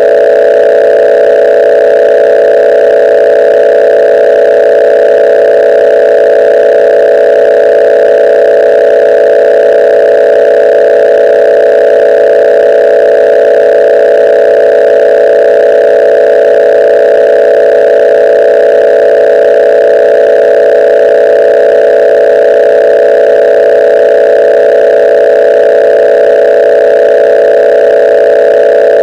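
A loud, steady electronic drone made of a few close tones, unchanging throughout, like a dial tone.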